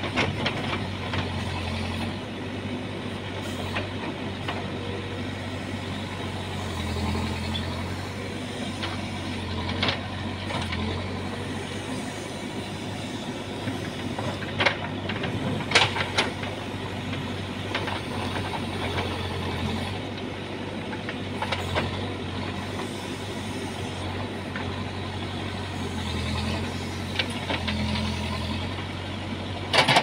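Manitou backhoe loader's diesel engine running steadily as the backhoe digs, rising a few times under hydraulic load, with a few sharp clanks of the bucket against rock and soil.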